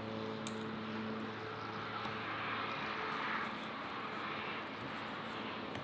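A distant engine passing by: a low droning hum that fades out in the first couple of seconds and a rushing noise that swells near the middle and dies away, with one light click about half a second in.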